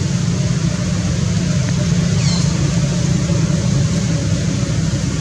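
A steady low hum like a running engine, with a short high chirp falling in pitch about two seconds in.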